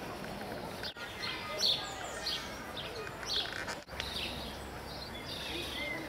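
Small birds chirping and calling in a zoo aviary, short high chirps scattered throughout over a background murmur. The sound drops out briefly twice.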